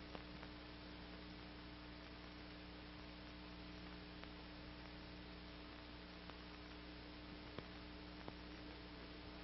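Near silence: a faint steady electrical hum with hiss from an old soundtrack, broken by a few faint clicks.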